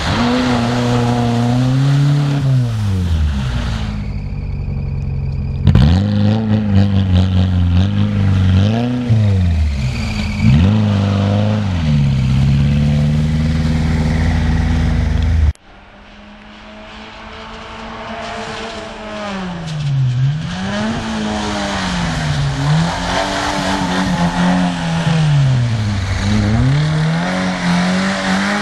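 Fiat Cinquecento rally car's engine revving hard, its pitch climbing and falling again and again as the driver works the throttle and gears through slides on snow. About halfway the sound cuts off and comes back quieter, then builds up, the revs dipping and rising about every three seconds.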